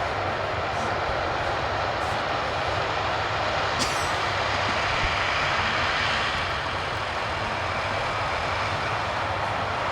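Heavy John Deere harvest machinery running steadily under load, a continuous engine hum under a dense mechanical rush. There is a brief sharp click about four seconds in.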